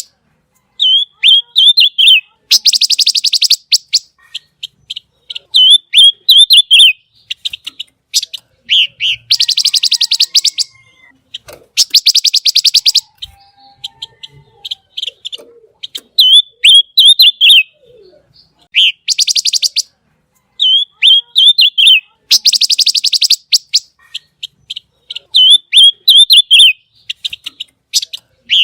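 Pancawarna songbird singing persistently, alternating a fast, harsh rattling trill of about a second with short, sharp warbled whistle phrases. The pair repeats every few seconds: the 'tembakan' and 'besetan' that bird keepers prize in a tutor song.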